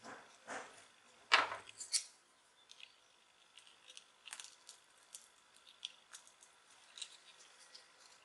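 Steel tweezers and fingers clicking and scraping against the small plastic housing of a Sony SBH50 Bluetooth headset. A few sharper clicks come in the first two seconds, the loudest about a second in, then light scattered ticks.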